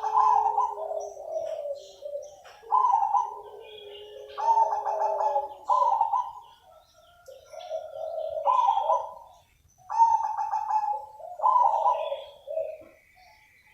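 Zebra dove (perkutut) singing: repeated phrases of quick, rolling coos, one burst every second or two.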